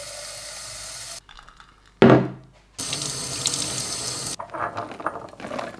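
Kitchen mixer tap running into a glass carafe to dilute red cordial; the water stops, there is one loud thump about two seconds in, then the tap runs again over a stainless steel sink as something is rinsed under it, with quieter splashing near the end.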